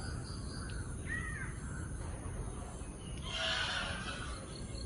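Birds calling: a short arching call about a second in, then a harsher, noisier call around three and a half seconds in, over a steady low rumble.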